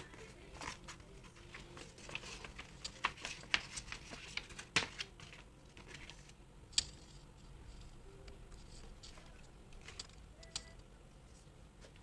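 Album packaging being handled: a run of light taps, clicks and paper rustles, busiest in the first half, with a couple of sharper clicks near the middle.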